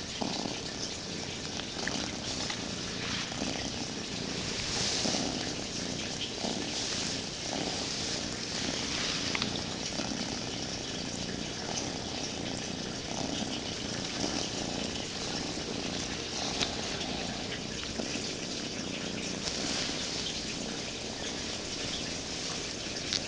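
Domestic cat purring, a steady purr that rises and falls about once a second.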